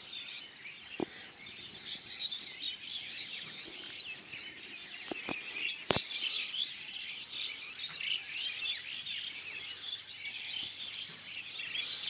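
Many small birds chirping and twittering together in a dense, continuous chorus. A few sharp clicks cut through it, one about a second in and two more around five to six seconds in, the last of them the loudest sound.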